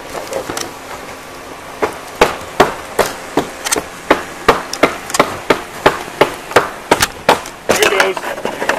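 Rapid, evenly spaced knocks on wood, about two to three a second, starting about two seconds in and lasting some six seconds: a wooden fence board being struck to knock it loose.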